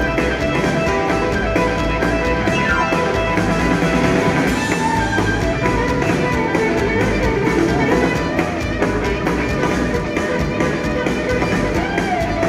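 Live blues-rock band playing loud and steady, led by an electric guitar solo on a Stratocaster-style guitar, with held and bent notes.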